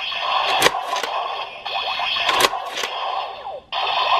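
Electronic sound effects and music from the DX Whale Change Gun toy's small built-in speaker, thin with little bass, as the toy is pump-charged for its six-pump attack. A few sharp hits cut through it.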